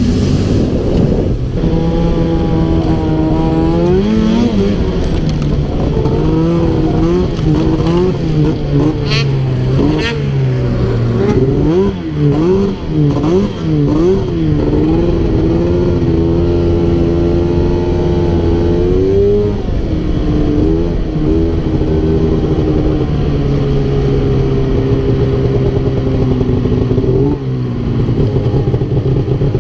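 Two-stroke snowmobile engine running hard under a working throttle, its pitch rising and falling again and again, with stretches where it holds a steady note.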